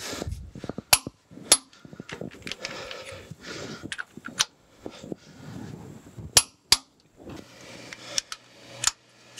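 Click-type torque wrench set to 160 foot-pounds clicking over on the steam chest cover nuts: about six sharp clicks spaced unevenly, each one signalling that a nut is already at full torque.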